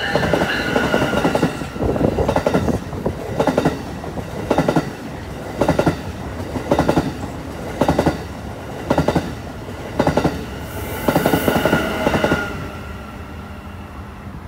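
Alstom Avelia Liberty high-speed trainset passing at speed: its wheels clack over the rail joints in quick groups about once a second as each car goes by. A whine sounds at the start and again about eleven seconds in as the second power car passes, then the sound fades away.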